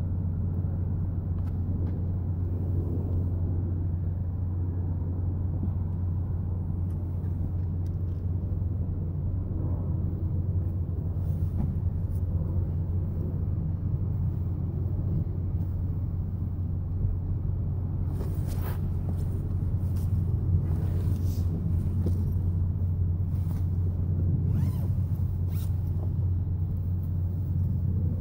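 A steady low rumble, with blankets and sleeping bags rustling and scuffing as they are pulled and shuffled around inside a car, more often in the last third.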